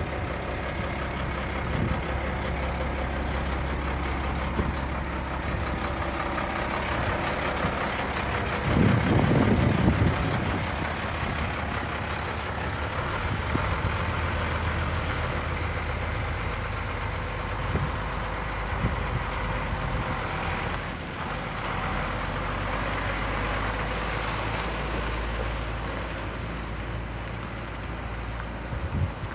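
International S1954 fuel truck's engine running steadily, then driving off, with a brief louder low rumble about nine seconds in.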